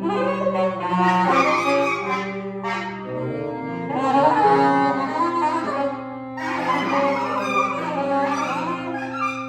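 Free-improvised jazz played by a clarinet, two alto saxophones and two tenor saxophones: several overlapping lines of held notes and rapid runs, swelling and thinning in waves.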